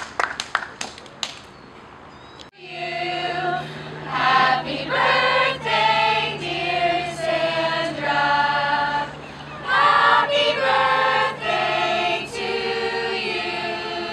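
A few last claps of applause die away, then after a sudden cut a glee club of young mixed voices sings in harmony, holding chords that change every second or so.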